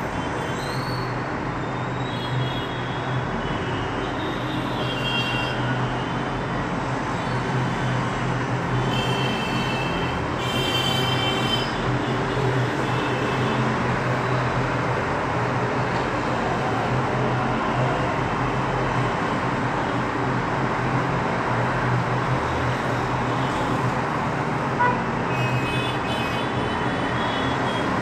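Steady background noise of distant road traffic with a low hum, with a few short high-pitched tones around ten seconds in and again near the end.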